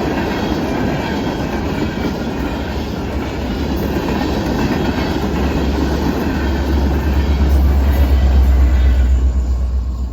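Norfolk Southern manifest freight train's cars rolling past, with steel wheels clacking over the rail joints. A deep rumble grows louder in the second half, and the higher wheel noise dies away about nine seconds in.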